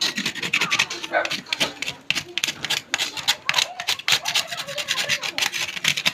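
A small knife blade scraping the fibrous husk of a coconut in quick, repeated strokes, several a second, shaving off the loose fibres to smooth the surface.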